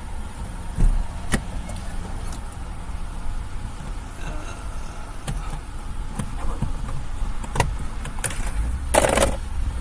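Plastic dashboard trim being handled during disassembly: scattered clicks and knocks, then a brief rustling scrape near the end, over a steady low rumble.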